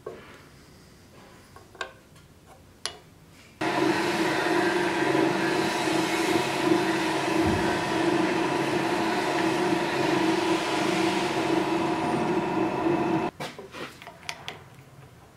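Drill press running steadily, its bit boring into a small block of wood clamped in a vise; the motor sound starts and stops abruptly and lasts about ten seconds. Before and after it, light clicks and taps of the wood being handled against the metal blade.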